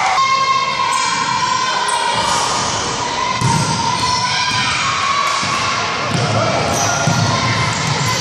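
Basketball bouncing on a hardwood gym floor in live play, with players' and spectators' voices ringing around the large hall.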